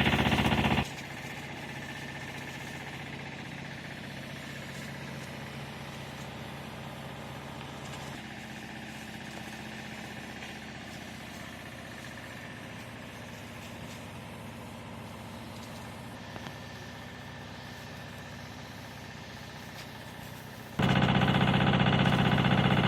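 A steady mechanical hum with faint fixed tones, like an engine running at a constant speed. A much louder sound stops abruptly about a second in and starts again abruptly near the end.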